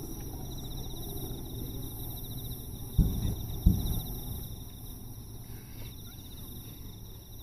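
Two deep booms of aerial fireworks shells bursting close by, about three seconds in and under a second apart, each trailing off in a low rumble. Insects trill steadily in the background.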